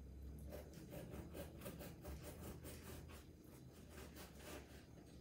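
Serrated bread knife sawing back and forth through a loaf of banana bread on a wooden cutting board: faint, even strokes, a few each second.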